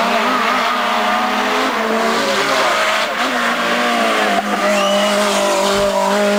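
Renault 5 Turbo rally car's turbocharged four-cylinder engine running hard at high revs up a winding climb, its note dipping and picking up again a couple of times as the driver lifts and changes gear.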